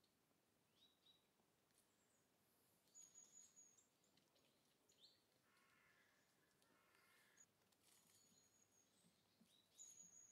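Near silence with faint bird chirps now and then: short high notes about three seconds in and again near the end.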